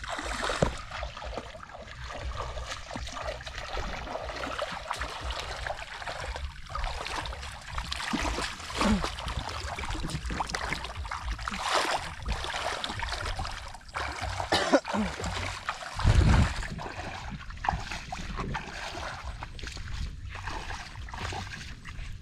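Feet wading through shallow muddy water, a continuous splashing and trickling, with several louder splashes in the middle stretch.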